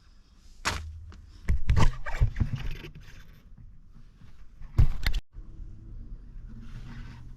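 A series of knocks and scrapes: one under a second in, a cluster about a second and a half in, and a loud one about five seconds in that cuts off abruptly.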